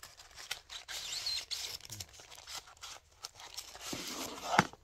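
Paper wrapper of a kebab crinkling and rustling in irregular spurts as it is unwrapped by hand, with one sharper, louder crackle near the end.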